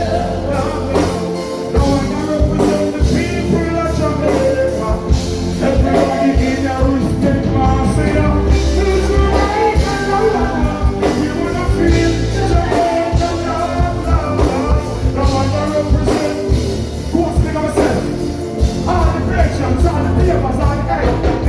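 Live band music with singing over a heavy, steady bass line.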